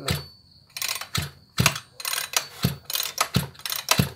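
Maruyama BigM KC26 26 cc two-stroke brushcutter engine turned over by hand on its recoil starter rope, about two pulls a second, each a sharp ratchet click with a short thud as the piston comes up against compression. The engine does not fire; the compression is very strong.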